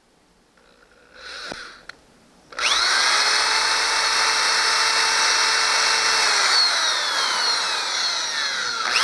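Handheld power drill boring a hole through a boat's fiberglass transom. After a short burst about a second in, the drill runs steadily at full speed from about two and a half seconds, its whine sagging a little in pitch in the second half as the bit cuts.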